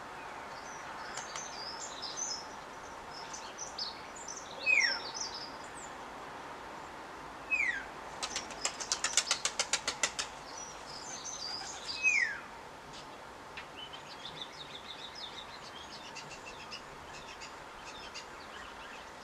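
Garden birds calling: high twittering chirps, three loud short whistles that slide downward, and near the middle a fast run of harsh pulses lasting about two seconds.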